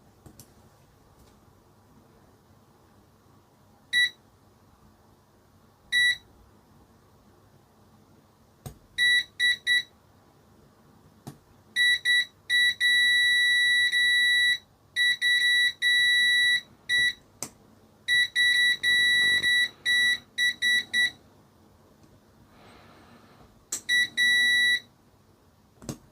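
Multimeter continuity beeper sounding a steady high tone on and off as its probes test a toy helicopter's power switch; each beep means the circuit is closed. First come two short single beeps a couple of seconds apart, then a stutter of rapid beeps and longer held tones that cut in and out.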